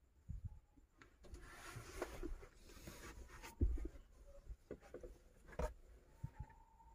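Quiet handling noises in a small enclosed space: rustling for a couple of seconds with scattered light knocks and thumps, the loudest a little after halfway.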